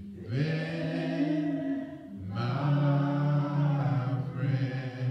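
A man singing unaccompanied in long, drawn-out phrases: two long held notes, the second starting about two and a half seconds in.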